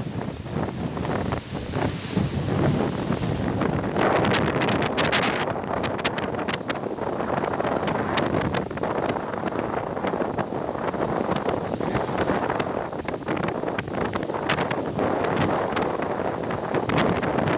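Stormy sea surf washing against the seafront embankment, with louder surges about four seconds in and again near twelve seconds, and gusty wind buffeting the microphone.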